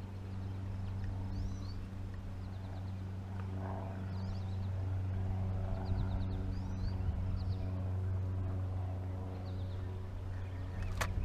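A small boat motor running with a steady low hum, with birds chirping now and then over it. A sharp click comes near the end.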